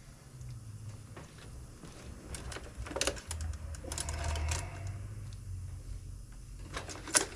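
Scattered clicks and light rattles of small hard objects being handled on a workbench, over a low steady hum.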